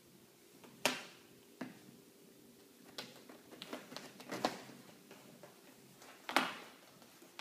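Sphynx kitten climbing on and gnawing the back of an office chair: a scattered series of short scratches and clicks from its claws and teeth on the chair, the loudest about a second in and a little after six seconds.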